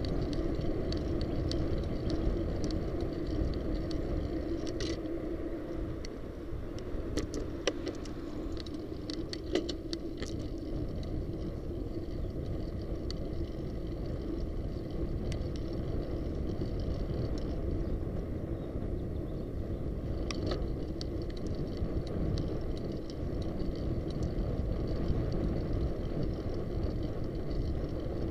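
Steady wind and road rumble on an action camera's microphone as a bicycle rolls along a street. Scattered light clicks and rattles come through, clustered about a third of the way in and again about two-thirds in.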